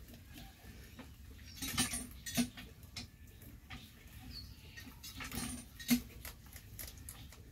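Rabbits eating fresh leafy greens: a scatter of small crisp crunching clicks from their chewing, with leaves rustling. The clicks come in two louder clusters, about two seconds in and again near six seconds.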